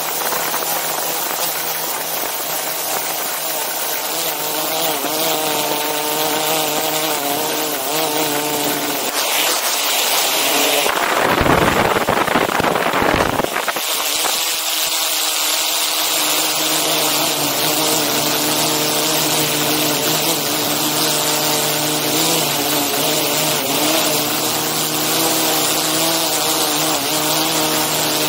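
DJI Inspire 2 quadcopter's propellers and motors whining steadily in flight, heard close up from the camera it carries, with several tones that waver a little. About eleven seconds in, a loud rushing burst swamps it for two to three seconds.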